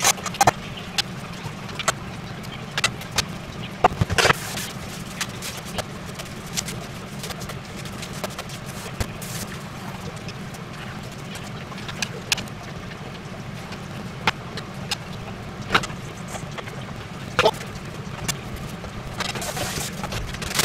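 Home cooking sounds: scattered clinks and knocks of utensils, pans and dishes over a steady low hum, with two brief rushing noises, one about four seconds in and one near the end.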